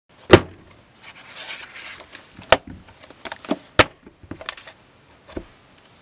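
Things being handled and set down on a desk: a few sharp knocks and lighter taps, the loudest just after the start, with a short sliding rustle about a second in, as a box is moved and a sketchbook is laid down.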